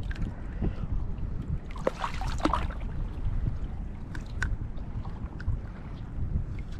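Wind rumbling on the microphone and bay water lapping and sloshing around a wading angler, with scattered small clicks and a brief noisier burst about two seconds in.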